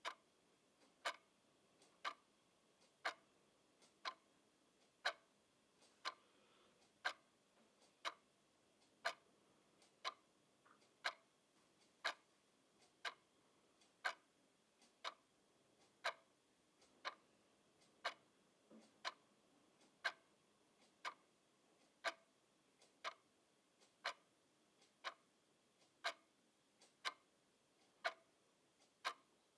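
Clock ticking steadily at about one tick a second, the strokes alternating louder and softer in a tick-tock pattern.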